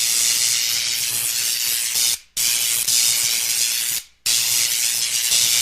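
Loud, harsh static hiss, strongest in the high range, that cuts out completely twice for a moment, about two seconds in and again about four seconds in, like a broadcast signal breaking up.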